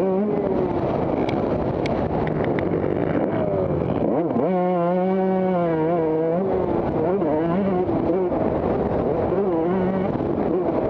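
Motocross bike engines revving and shifting on the track, pitch rising and falling. About four seconds in, one bike climbs sharply in revs and holds a loud steady pitch for about two seconds before dropping away.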